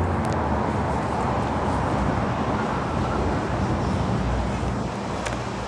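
Steady road traffic noise, with a few faint clicks.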